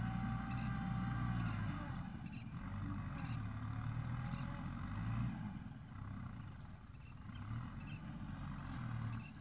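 Distant tractor engine working in a muddy paddy field, a low uneven rumble that surges and eases. A run of rapid high ticks about two seconds in, with scattered high chirps later.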